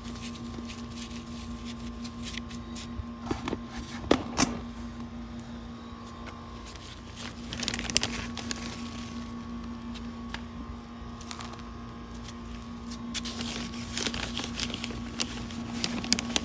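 Hand trowel scooping potting soil out of a plastic bag, with the bag crinkling and the soil crunching and scraping, the busiest stretches about eight seconds in and over the last few seconds. A few sharp knocks come about four seconds in. Under it all an air conditioner hums steadily.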